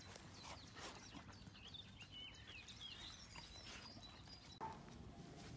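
Quiet outdoor ambience with faint birdsong: a run of short, high chirps in the middle, with scattered soft clicks. The background noise steps up near the end.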